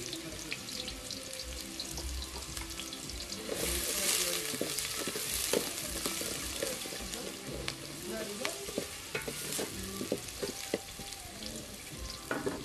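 Boiled beef sizzling as it fries in cooking oil in a metal pot, stirred with a wooden spoon that clicks and scrapes against the pot. The sizzle swells louder about three and a half seconds in, then settles.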